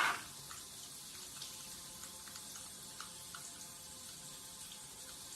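Water running steadily, with faint light ticks throughout and a brief louder swell right at the start.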